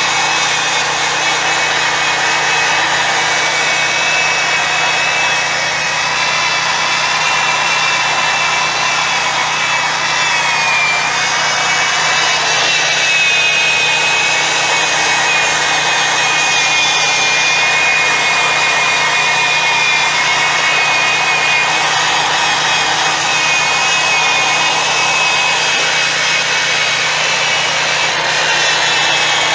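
Electric drill spinning a foam polishing pad, buffing cut polish into a plastic headlight lens: a steady motor whine over the rubbing of the pad, its pitch dipping slightly about ten seconds in.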